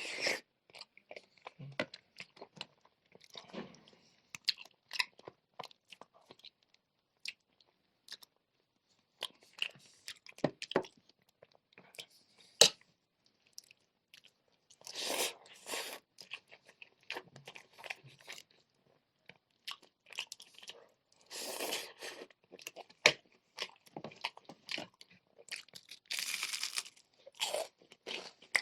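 Close-miked eating: crunching bites of crispy fried chicken and chewing of spicy noodles, with many sharp clicks and a few longer, denser stretches of noise.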